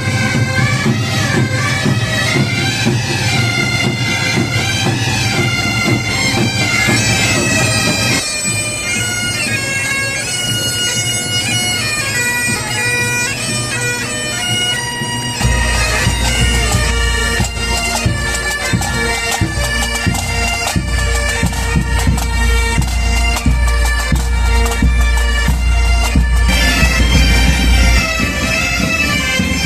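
Massed bagpipes playing a tune over their steady low drones. The drone and tune change about eight seconds in and again about halfway through.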